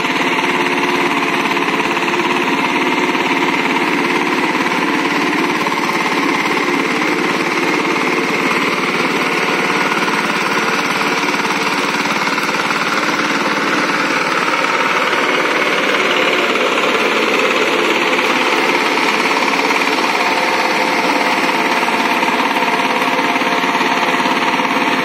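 Walk-behind two-wheel power tiller's single-cylinder diesel engine running steadily under load while puddling a flooded paddy field.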